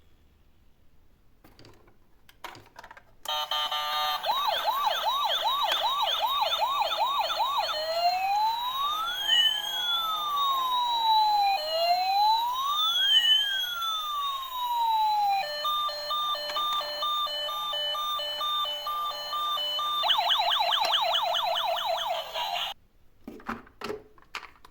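Electronic emergency-vehicle siren cycling through its patterns, starting about three seconds in: a fast yelp, two slow rising-and-falling wails, a two-tone hi-lo, then the fast yelp again before it cuts off suddenly.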